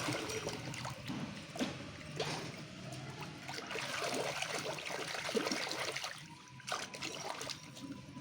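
Water trickling and splashing as muddy toys are rinsed, with scattered small clicks and knocks.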